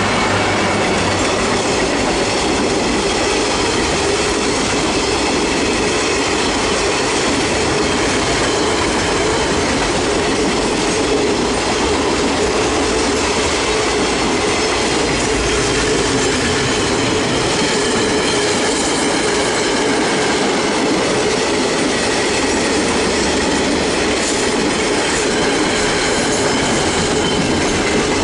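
Freight train's container and flat wagons rolling past close by: a steady, loud rumble of steel wheels on rail with clickety-clack, and thin high-pitched tones from the wheels above it.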